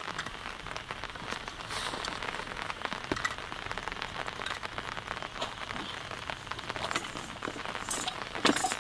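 Heavy rain on a tent, heard from inside: a steady hiss packed with the quick ticks of single drops. A brief louder noise near the end.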